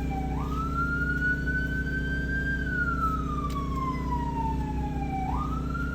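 Emergency vehicle siren wailing: the tone jumps up, then slowly rises and sinks over about five seconds before jumping up again near the end. A steady engine hum runs underneath.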